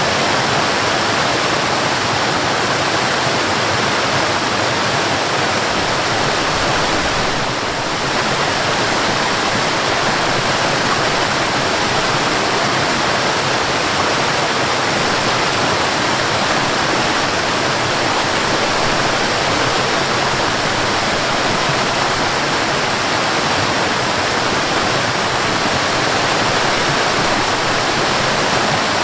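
Waterfall: a steady, even rush of falling water, with a brief slight dip in level about seven and a half seconds in.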